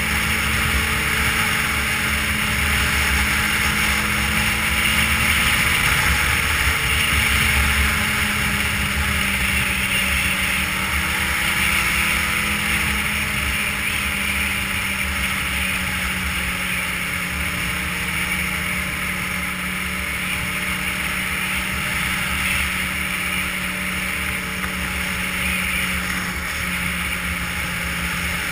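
Ski-Doo touring snowmobile running steadily at trail-cruising speed, its engine note rising and easing a little a couple of times, over a steady hiss.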